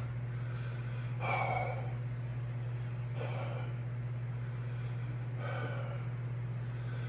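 A man breathing heavily through an open mouth, three slow gasping breaths about two seconds apart, the first the loudest: panting against the burn of superhot chocolate primotalli peppers that leave his mouth and throat on fire. A steady low hum runs underneath.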